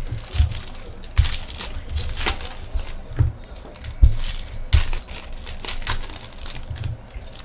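Foil trading-card pack wrappers being torn open and crinkled in the hands, with many short crackles. Several dull knocks are mixed in, the strongest about four seconds in.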